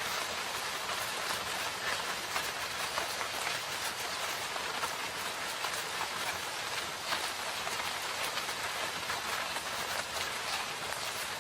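Steady rain falling in a forest: an even hiss of rainfall with many small individual drops ticking through it.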